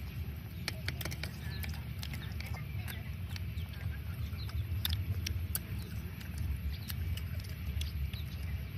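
Eating sounds: scattered clicks and smacks of chewing and of chopsticks against a steel plate, over a steady low rumble of wind on the microphone.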